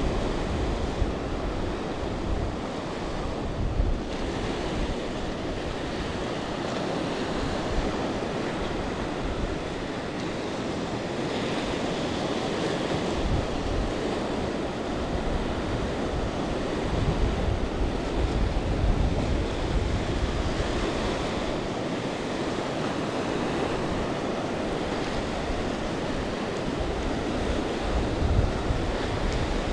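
Shallow ocean surf washing up over the sand and swirling around, a steady wash of water, with wind buffeting the microphone in irregular low gusts.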